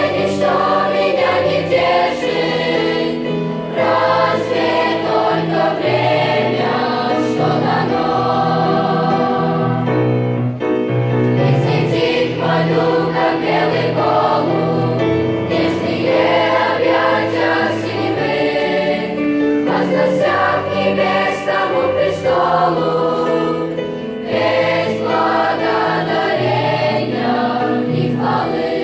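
Children's choir singing a Christian song in Russian, with musical accompaniment under the voices.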